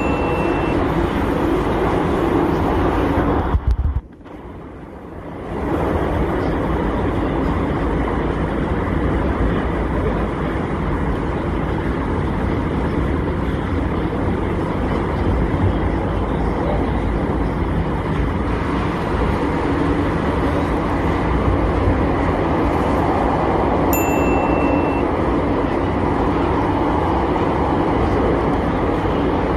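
Metro train running, heard from inside the carriage: a steady rumble and rush that drops away abruptly for about a second and a half around four seconds in. A short high beep sounds near the start and again about 24 seconds in.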